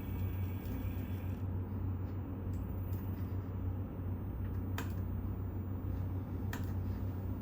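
A few sharp mouse clicks over a steady low hum, the clearest two about five and six and a half seconds in.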